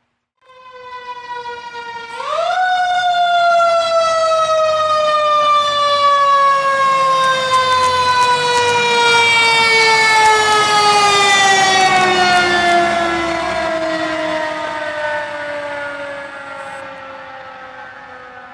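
Fire engine siren: a steady wail that winds up sharply about two seconds in, then slowly winds down in pitch, fading away toward the end.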